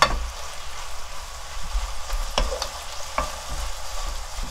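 Dried shredded squid sizzling in a soy-sauce glaze in a nonstick wok as a wooden spatula stirs and tosses it. A few sharp knocks of the spatula on the pan stand out: one at the start, two more about two and a half and three seconds in.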